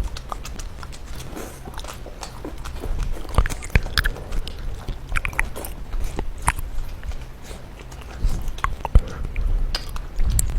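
A person eating hor fun rice noodles close to the microphone: chewing and biting, with many short, sharp mouth clicks and smacks scattered irregularly throughout.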